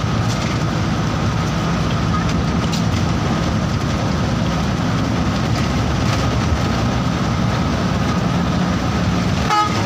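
Tisha Platinum bus on the move: a steady low engine drone mixed with road noise, and a faint steady whine above it.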